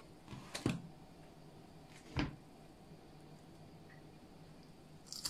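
A few faint clicks and knocks of kitchen scissors and a mackerel being handled on a plastic cutting board, the loudest a dull knock about two seconds in and a sharp click near the end, over a faint low hum.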